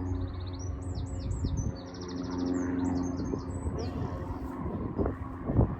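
A songbird sings a quick, varied phrase of high trills and short slurred notes for about four seconds, over a steady low machine hum. A few dull knocks come near the end.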